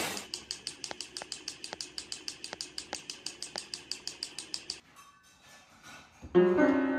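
Battery-powered toy train running on plastic track, clicking rapidly and evenly at about six to seven ticks a second, then stopping about five seconds in. Piano notes start near the end.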